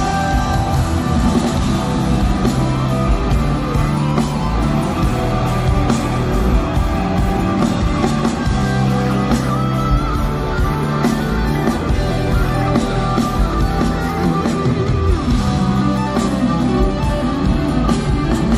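Live rock band playing an instrumental passage: electric guitar to the fore over bass and drums, with no singing.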